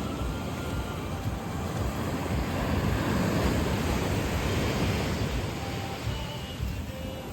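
Sea surf washing onto the beach, swelling to a peak in the middle and easing off, with wind buffeting the microphone as a low rumble.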